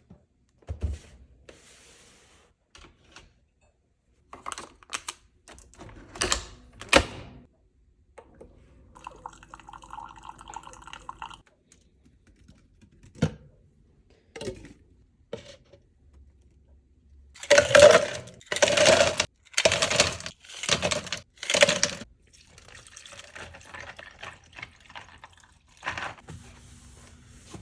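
A run of coffee-making sounds with liquid being poured: scattered clicks and knocks, a small machine running steadily for about three seconds, then five loud noisy bursts in quick succession.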